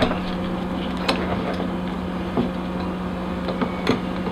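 Steady low hum with three light metallic clicks as channel-lock pliers are fitted onto the steel dog of a dog-proof trap.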